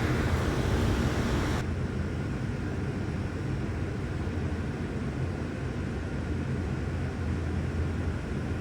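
Steady low mechanical hum over a background hiss, with the hiss dropping suddenly about a second and a half in.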